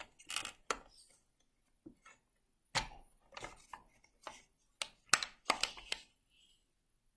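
Irregular series of sharp knocks and clicks from a plastic digital alarm clock being handled, about a dozen in all, some close together.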